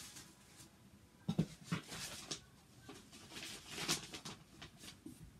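Rummaging inside a cardboard shipping box: packing paper rustling and the packed contents shifting and knocking, in short scattered crackles, the loudest about a second and a half in and near four seconds.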